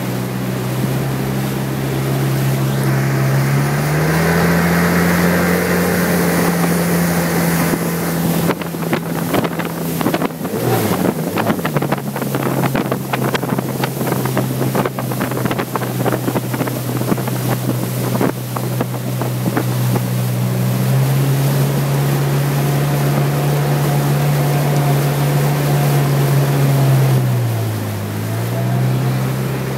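Motorboat engine running at speed, its pitch stepping up about four seconds in and dipping briefly twice with throttle changes. Water rushing past and wind buffeting the microphone, strongest in the middle stretch.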